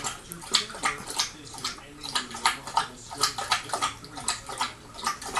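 Rhodesian Ridgeback puppy eating from a stainless steel bowl: wet chewing and mouth smacks, about three or four a second.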